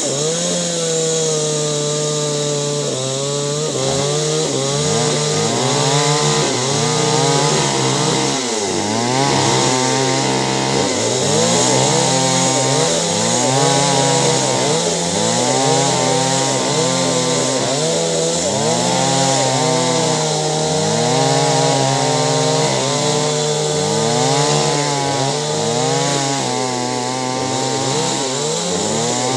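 Two-stroke chainsaw running hard while cutting clove wood, its engine pitch repeatedly sagging and rising again about every second or two under the load of the cut.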